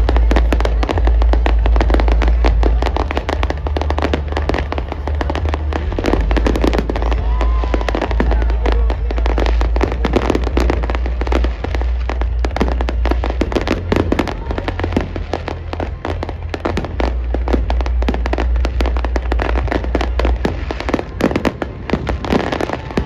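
Aerial fireworks display: a dense, continuous barrage of shell bursts and crackling, with a heavy low rumble under it.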